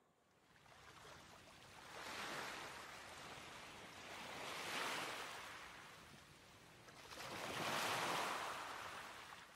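Sea waves washing on the shore, the surf rising from quiet and swelling and fading three times.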